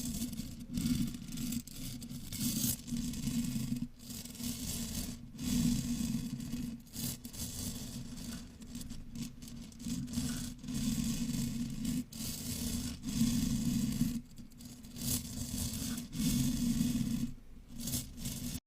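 Metal chain rubbed and dragged directly over a microphone, giving a continuous scraping, rustling noise that comes in uneven swells with short breaks between them.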